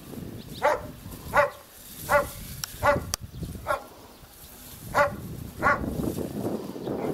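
A dog barking repeatedly, about seven sharp barks in two runs with a short pause between them.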